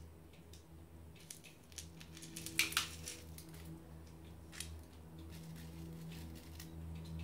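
Masato grit poured from a wooden spoon onto a pot's gravel top dressing: a patter of small stone clicks as the grains fall and settle, densest and loudest a little before the middle, then thinning out. A steady low hum runs underneath.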